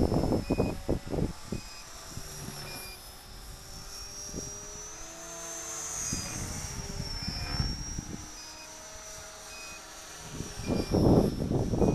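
Electric RC helicopter flying high: a thin, steady motor and rotor whine that rises in pitch about halfway through and then settles back. An electronic alarm beeper chirps in short regular beeps over it, and a low rumble is loudest at the start and near the end.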